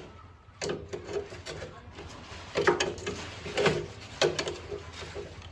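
Wrench working on engine mounting bolts to loosen them: a series of irregular metallic clicks and clanks, a few a second, some with a short ring.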